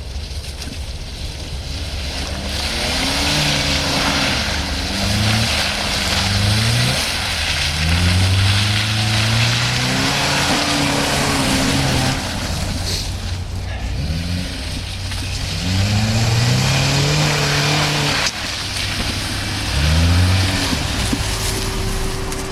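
Nissan Qashqai's 2.0-litre engine, driving through CVT and four-wheel drive, revving up and falling back repeatedly while it pushes through off-road mud, over a steady rushing noise.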